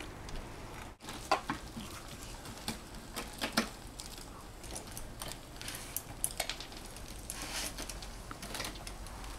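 Wheelchair hand cycle, built from a modified Cannondale mountain bike front end, clicking and rattling irregularly as it rolls and is cranked across a concrete patio.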